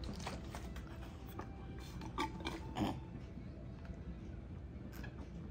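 Faint scattered clicks and rubbing sounds, with two slightly louder short sounds about two and three seconds in, from a child chewing pretzels and handling a foam cup of whipped cream.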